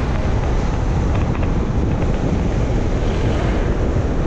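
Wind buffeting the camera microphone on a moving Vespa scooter, a steady low rumbling rush with the scooter's running and road noise under it.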